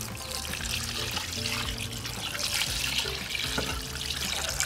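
Water pouring steadily from a glass jug onto raw chicken pieces in a metal pot, splashing as the pot fills to cover the chicken for boiling.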